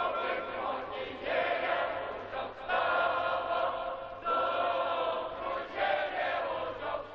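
A crowd of men singing together in unison, in held phrases of about a second and a half with short breaks between them.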